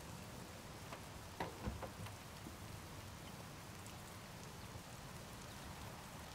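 Faint steady hiss of light rain outdoors, with a few clicks and a knock about one and a half seconds in as a door is pulled shut.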